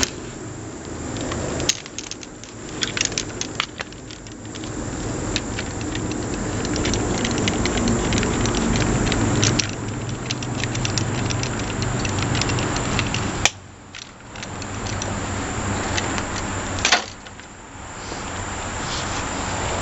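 Small metal parts clinking and rattling as they are handled, with a few sharper clicks: one about two seconds in, and two more in the second half.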